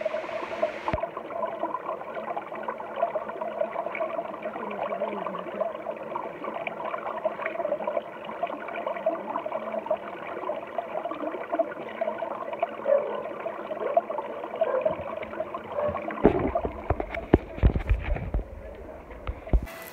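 Shallow stream gurgling and trickling over stones. Near the end come several low rumbling knocks, like the microphone being handled.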